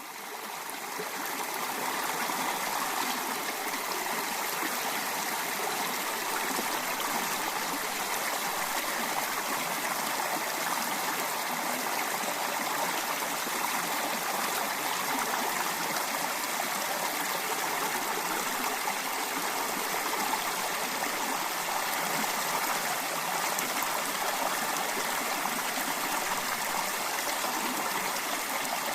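River water flowing and rushing steadily, an even wash of water noise that fades in over the first two seconds.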